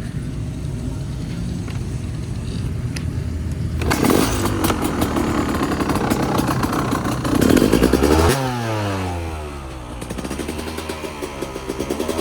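2000 KTM 250 two-stroke dirt bike engine firing up about four seconds in, then revved with throttle blips, each rev falling back down in pitch. The owner judges it to be running a little lean.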